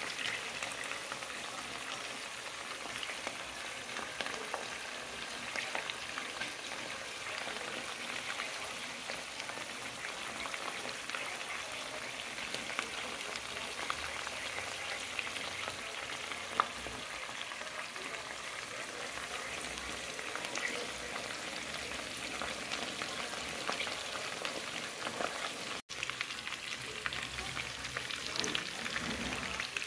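Chicken drumsticks and pieces frying in oil in a pot: a steady crackling sizzle, with one sharp click a little past halfway.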